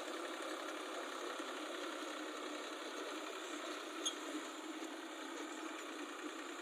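Diesel farm tractor engine running steadily at low speed while pulling a trailer loaded with earth, with one short click about four seconds in.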